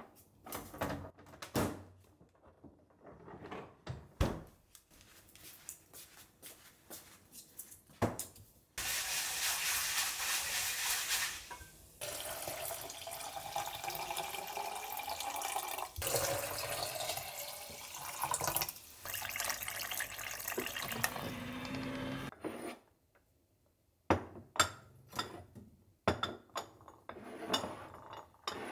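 Kitchen sink tap running hard for a few seconds, then milky rice-rinsing water poured in a steady stream into tall glass jars for about ten seconds. It stops abruptly, and light clicks and clinks of glass jars and wooden tongs follow near the end.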